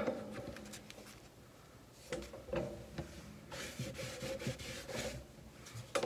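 Paper and card craft pieces being handled and slid over a plastic cutting mat: a few light knocks about two seconds in, then a second or so of soft rubbing and rustling.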